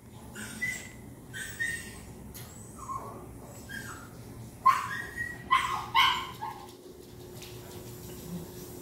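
A mini goldendoodle's string of short barks and yips, about nine, loudest around the middle, then stopping.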